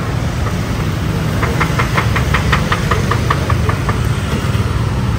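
A steady low motor rumble, like an idling engine, runs throughout. About a second and a half in, a quick run of light ticks comes in at about six a second and fades out after a couple of seconds.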